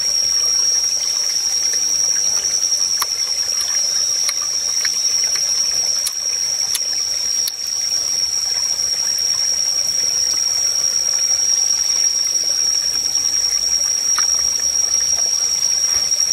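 Forest stream trickling, with a steady high-pitched whine running over it and a few faint clicks.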